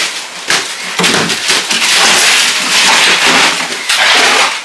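Loud, continuous clatter and knocking of a busy fish market, as plastic fish crates, ice and insulated fish boxes are handled.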